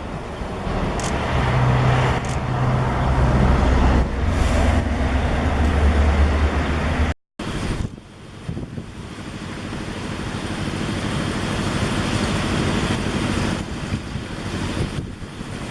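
Road traffic: vehicles passing with a steady engine hum and tyre noise. The sound cuts out completely for a moment about seven seconds in, then the traffic noise rises again.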